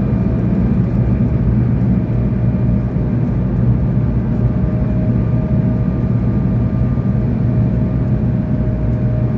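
Steady airliner cabin noise: a deep, even rumble of engines and airflow with a faint steady whine on top.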